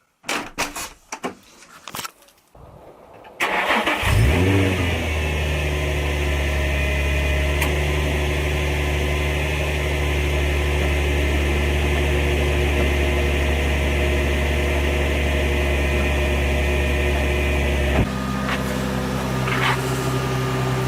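Nissan 350Z's 3.5-litre V6 starting: a few clicks, then the starter cranks and the engine catches about four seconds in with a short rise in revs, then idles steadily. About 18 seconds in the idle drops to a lower, quieter note.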